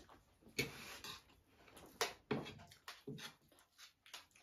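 People eating at the table: several short wet smacks and clicks of chewing and lips, and fingers working rice and curry, spaced about a second apart.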